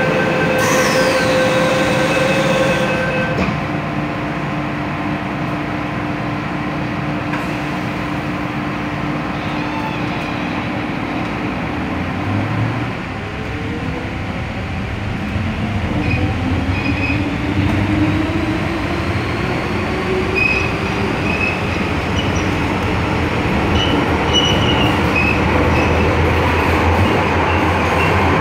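MTR M-Train door-warning beeps as the doors close, then the train pulling away and accelerating with running noise, its traction motors whining upward in pitch from about halfway through.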